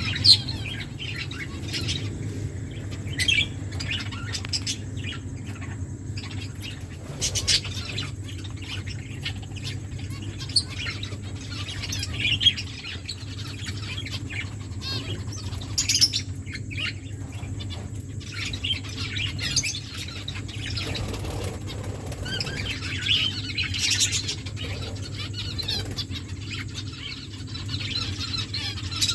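Aviary finches chirping and calling on and off, with a few brief wing-flapping flutters among the calls. A steady low hum runs underneath.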